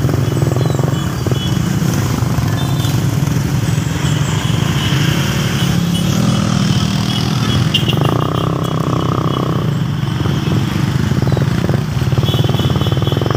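Motorcycle engine running steadily at low road speed, heard from the rider's seat, with a brief higher-pitched tone about eight seconds in.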